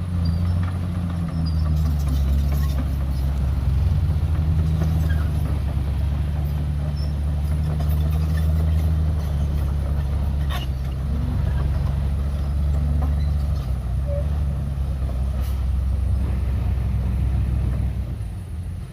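Heavy diesel earthmoving machinery running steadily with a deep, loud rumble, easing off slightly near the end.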